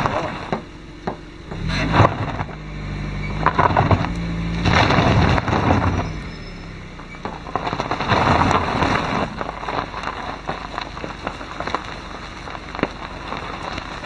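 A Hyundai hatchback's engine revs up hard about two seconds in and eases off after about six seconds, while its tyres crunch over loose gravel and leaf litter with many sharp crackles of stones. Wind buffets the microphone mounted on the car's side. It is a two-wheel-drive car labouring on a steep, loose dirt track.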